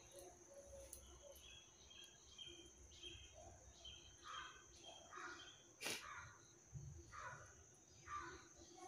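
Faint outdoor background: a steady high insect drone, short bird calls every second or so, and a sharp click about six seconds in.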